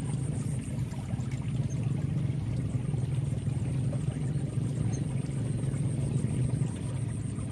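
Steady rushing of muddy floodwater flowing along an irrigation channel.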